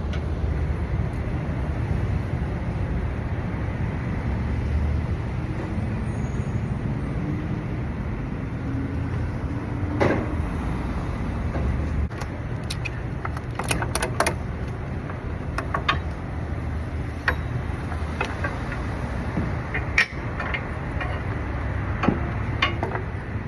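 Steady low rumble of a motor vehicle, with a few sharp knocks and clicks scattered through it.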